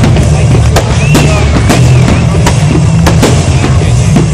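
Fireworks display: aerial shells bursting in quick succession, many sharp bangs over a continuous loud rumble, with a wavering whistle about a second in.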